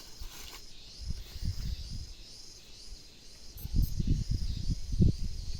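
Insects droning steadily in the background. Irregular low thumps come in about a second in and grow louder in the second half.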